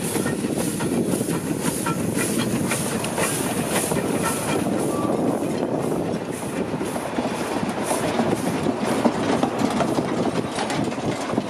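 Small narrow-gauge steam locomotive drawing a train of goods wagons slowly past, the steam exhaust beating evenly while wheels clatter and clank over the rail joints with many sharp clicks.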